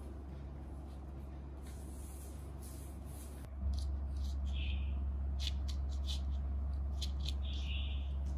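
A straw broom swishing over a hard tiled floor, a few soft strokes over a steady low hum. About three and a half seconds in the hum grows louder and gives way to a small monkey moving about in its cushioned bed and blanket: fabric rustling with light clicks and ticks.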